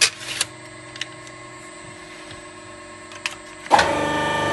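Licence-plate embossing press: a few metal clicks as the plate and die tray are handled, over a steady machine hum. Near the end the press starts its pressing stroke with a loud, steady mechanical hum of several tones.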